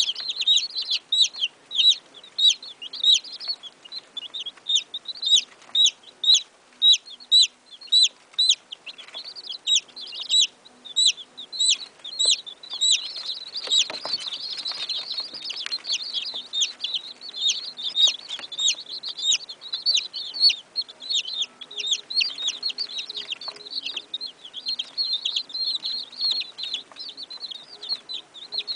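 A brood of young chicks peeping nonstop: a dense chorus of short, high peeps, each sliding down in pitch, several a second.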